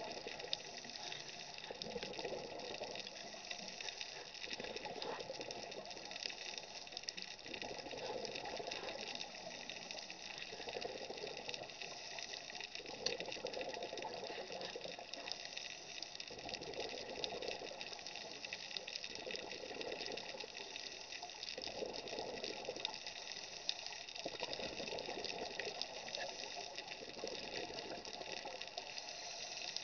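Scuba breathing heard underwater: regulator exhaust bubbles bursting out in a swell about every three seconds, over a steady hiss.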